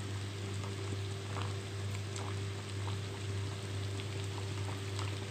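Hot oil in an iron kadai bubbling and crackling with scattered small pops as a layered khaja pastry deep-fries, over a steady low hum.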